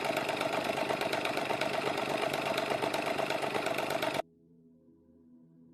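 Rotary engine running steadily, cutting off suddenly about four seconds in.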